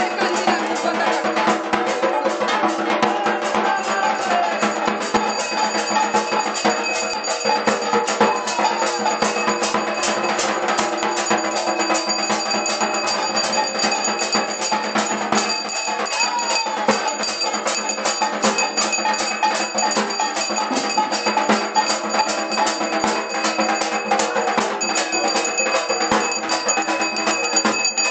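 Dhak drums beaten in a fast, steady rhythm, with a metal bell ringing along.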